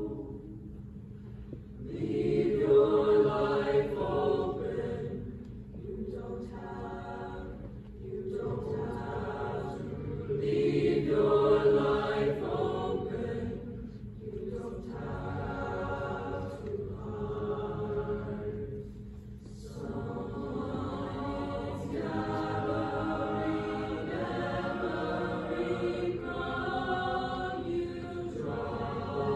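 Mixed choir singing a slow choral piece in harmony, in long held phrases separated by brief pauses.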